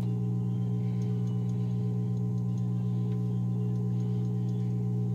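Hot-air rework station running with a steady electrical hum of several fixed tones, blowing heat onto the phone's glass to soften the adhesive. A few faint light ticks sit under the hum.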